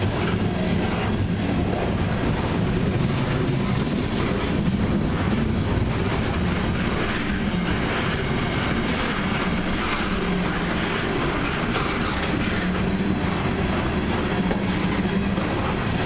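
Long CN freight train of mixed cars and autoracks rolling steadily past: a continuous rumble of steel wheels on rail with light clicking as the wheels cross rail joints.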